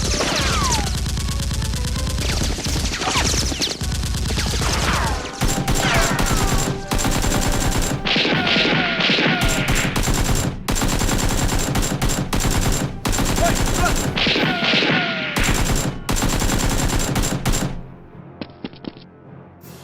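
Rapid automatic gunfire, with long bursts of quick shots and a few short falling whines among them. It dies away about two seconds before the end.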